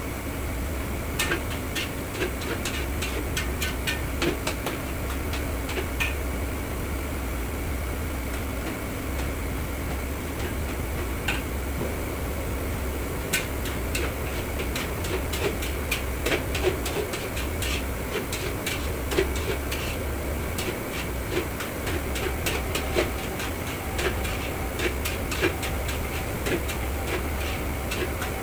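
Metal ladle clanking and scraping against a wok in irregular bursts, over the steady low roar of a gas wok burner and kitchen ventilation.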